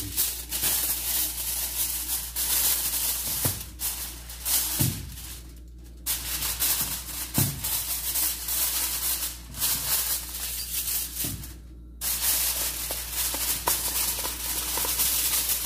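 Sheet of aluminium foil crinkling and crackling as it is unrolled and smoothed by hand over a roasting pan, with many sharp crackles. It goes quieter briefly twice.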